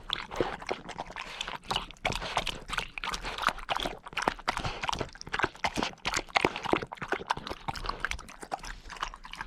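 Bernese Mountain Dog puppy snuffling and chewing at things on the ground: a dense, irregular run of crisp crunches and clicks.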